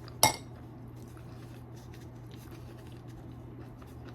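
A single sharp click or clack of a small hard object about a quarter second in, then faint small handling ticks over a steady low hum.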